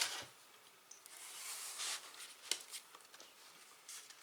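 Paper rustling as the glossy pages of a sticker album are handled and turned, in a few short swishes, with a light tap about two and a half seconds in.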